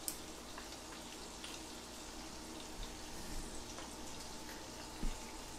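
Faint steady sizzle with light scattered crackles from butter and fish in a hot cast iron skillet. A soft knock about five seconds in.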